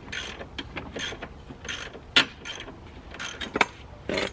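Ratchet wrench being worked on a bolt: a run of about six short ratcheting strokes, roughly one every 0.8 seconds, with two sharper metal clicks among them.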